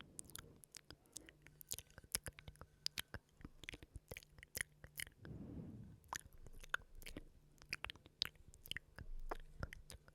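Close-miked ASMR mouth sounds: rapid, irregular wet clicks and smacks, with a brief breathy rush about halfway through.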